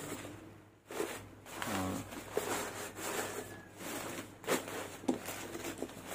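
Crumpled newspaper packing rustling and crinkling as it is rummaged and pulled out of a cardboard box, with two sharper knocks in the second half.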